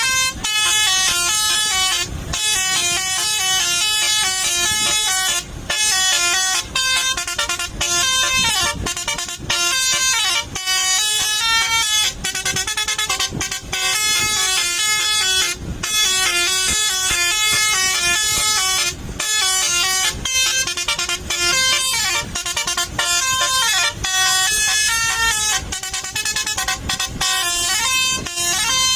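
Bus telolet horn, a multi-tone basuri musical air horn, playing a tune as a quick run of stepped notes, broken by short pauses every few seconds.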